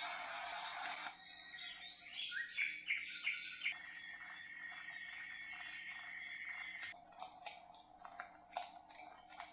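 A small alarm clock's speaker cycling through its built-in sounds. A steady hiss of noise cuts off about a second in, followed by bird-like chirps. Then comes a steady high electronic tone with a fast pulse that stops suddenly, and then a few light clicks.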